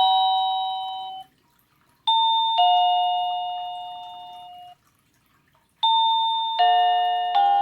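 Plug-in wireless doorbell receiver playing its electronic chimes: a falling two-note ding-dong dies away about a second in and sounds again at about two seconds, then a longer tune of several bell notes begins at about six seconds.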